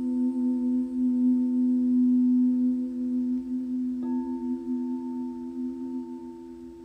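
Singing bowls ringing with steady, overlapping pure tones; the lowest tone slowly fades while another bowl is struck again about four seconds in.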